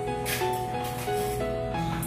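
Background music: a melody of short held notes stepping in pitch over a steady bass, with light percussion.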